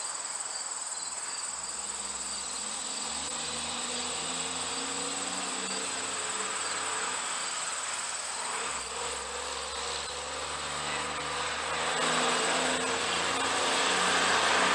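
Snapper commercial string trimmer's small engine running with a steady buzz, growing louder near the end.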